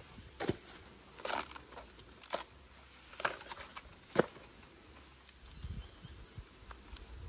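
Scattered crackles and snaps of dry bamboo litter, leaves and twigs being trodden or handled, about five sharp ones in the first half with the loudest about four seconds in, then fainter.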